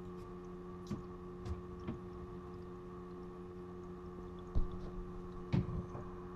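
Steady hum of a small 9-volt submersible pump circulating coolant through a homemade laptop water-cooling loop, with a few faint knocks, the clearest near the end.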